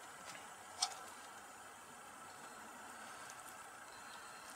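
Faint, steady hiss of a lit Camp Chef stove gas burner, with a few light clicks, the sharpest about a second in.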